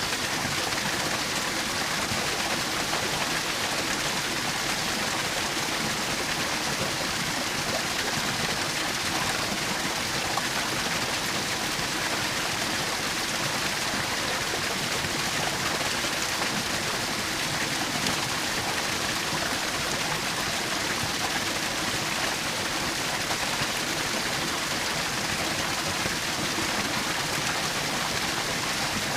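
Small waterfall splashing and rushing steadily, an even hiss of falling water with no change.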